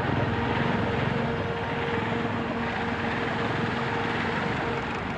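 Single-engine biplane's piston engine and propeller running steadily as it passes low: a loud, even drone with a steady hum, easing slightly near the end.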